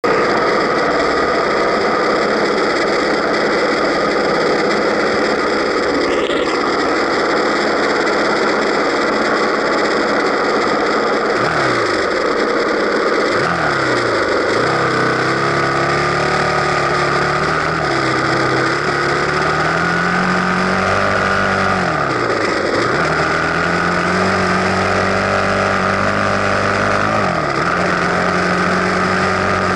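Enduro dirt bike engine running while riding over a steady rushing noise. From about a third of the way in, the engine note drops sharply and climbs back up several times as the rider comes off the throttle and gets back on it or shifts gear.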